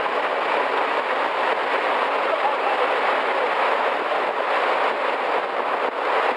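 Rockfall: a mass of rocks and debris tumbling down a mountain scree slope, a steady dense rumble with no separate distinct impacts.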